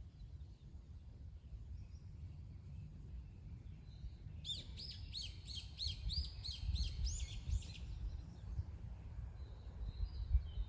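A songbird sings a quick run of about ten repeated, arching whistled notes lasting about three seconds, a few seconds in. A low steady rumble runs underneath.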